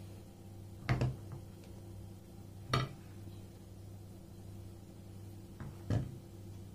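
Three short knocks of china plates on a tiled countertop, about a second in, near three seconds and about six seconds in, over a steady low hum.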